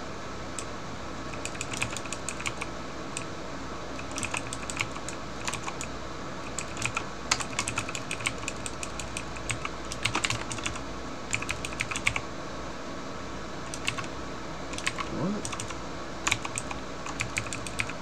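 Computer keyboard typing: runs of quick key presses in bursts with short pauses between them, over a steady low background hum.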